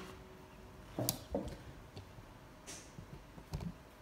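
Handling noise from hands working a ball of yarn and a crochet hook on a hard surface: a few separate soft taps and rustles.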